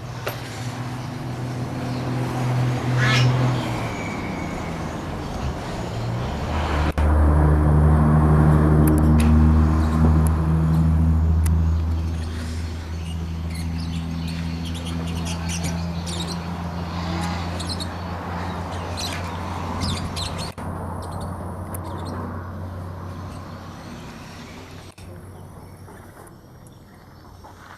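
Diesel engine of a Kubota DC70 combine harvester running steadily. It gets louder and deeper about seven seconds in, holds for a few seconds, then gradually fades away.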